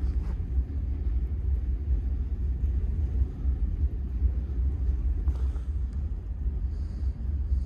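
Steady low rumble of wind buffeting the microphone outdoors, with a few faint clicks.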